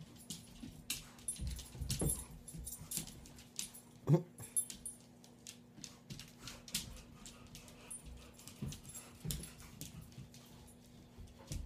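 A kuvasz puppy and a husky-Akita dog play-wrestling on a hardwood floor: scattered scuffles and clicks, with a few brief dog vocalizations, the loudest about four seconds in.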